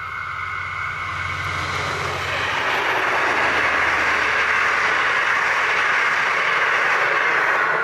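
V/Line N class diesel locomotive and its passenger carriages passing at speed. The locomotive's low diesel drone gives way, about two and a half seconds in, to a louder steady rush of the carriages' wheels on the rails.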